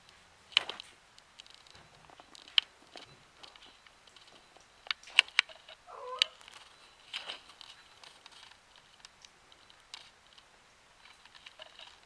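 A cat gives one short meow about six seconds in, among scattered sharp clicks and taps.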